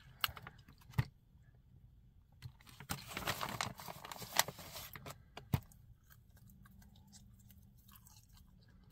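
A person chewing pieces of thick-cut bacon jerky close to the microphone, with a few sharp smacking clicks and a denser stretch of crunching from about three to five seconds in.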